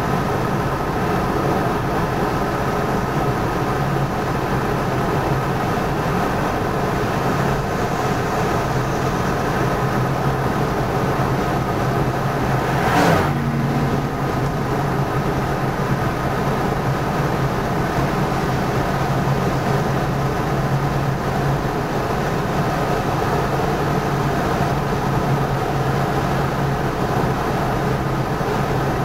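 Steady engine and tyre drone heard from inside a car's cabin while cruising on a highway. About halfway through comes a brief whoosh that falls in pitch.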